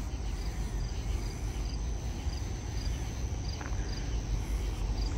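Cricket chirping in a steady rhythm, about two short high chirps a second, over a low steady rumble.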